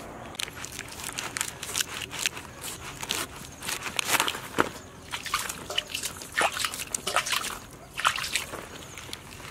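Large knife slicing off the stem end of a whole jackfruit, cutting through the knobbly, sappy rind in a quick irregular run of short, sharp cuts and scrapes.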